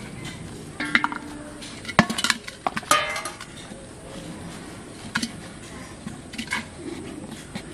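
Metal pot and plate being handled on hard ground: sharp clinks and clanks, some with a short ring, bunched about one to three seconds in, then a few lighter taps.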